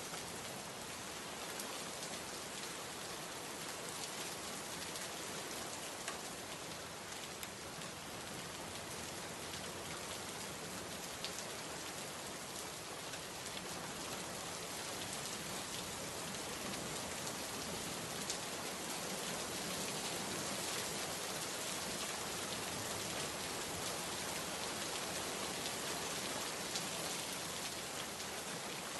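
Heavy rain pouring steadily, with scattered sharper drop hits, a little louder in the second half.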